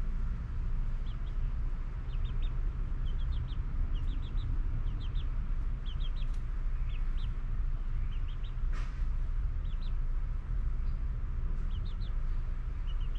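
Chickens making short high chirps in quick groups of two to four, repeating every second or so, over a steady low rumble.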